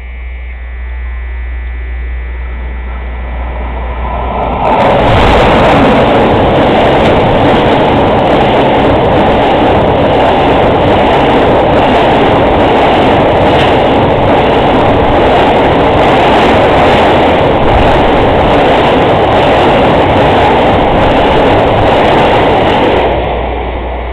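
Container freight train approaching, then running close past at speed: a loud, steady rush of wheels on rail with regular clacking over the rail joints. It swells over the first few seconds, comes in suddenly loud about five seconds in, and drops away near the end as the last wagons pass.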